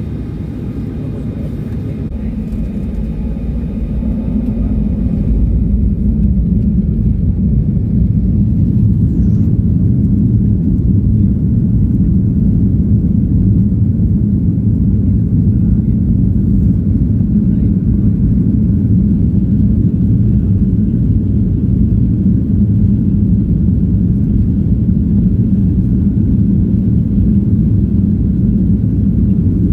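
Boeing 737-900's jet engines heard from inside the cabin, rising in level over the first few seconds and then holding a loud, steady rumble: typical of the engines spooling up to takeoff thrust and the takeoff roll.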